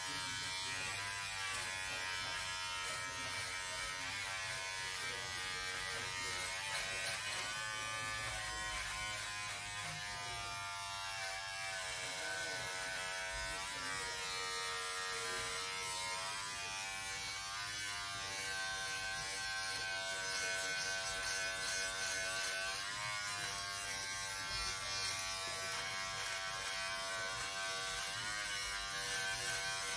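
Braun 6-in-1 electric shaver running with a steady buzz during a quick clean-up shave, its pitch wavering up and down as it is worked.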